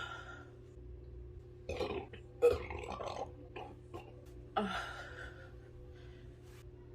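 A woman belching several times after chugging two litres of fizzy cola. The loudest belch comes about two and a half seconds in, with another just before the five-second mark.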